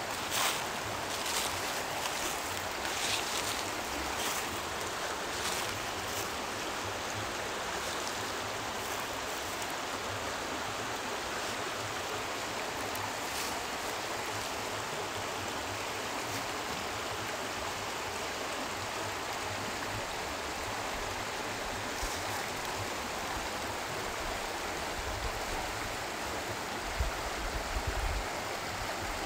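Steady rush of flowing water, with a few short crackles in the first few seconds and brief low rumbles near the end.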